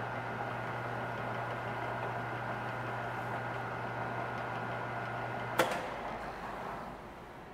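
Wasino LR-55A lathe running steadily with a hum. About three-quarters of the way through a sharp click, the hum cuts off and the spindle coasts down: the lathe has been switched off.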